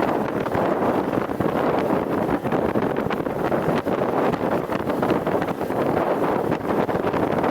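GAZ-66 truck running on the move, a steady mechanical drone full of small rattles and knocks, with wind buffeting the microphone.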